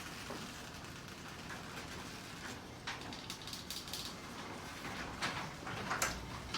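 Marantec M 4500E garage door opener running as it closes the door: a steady low hum with scattered clicks and rattles from the moving door and track.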